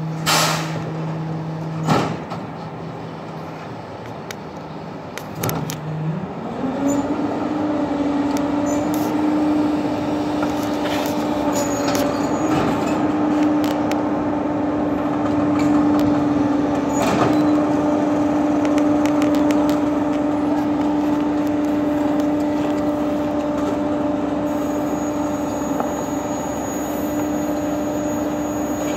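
Rear-loading garbage truck's engine running at idle, then speeding up about six seconds in and holding a higher steady pitch as the hydraulic packer works the load. A few sharp knocks come from trash going into the hopper.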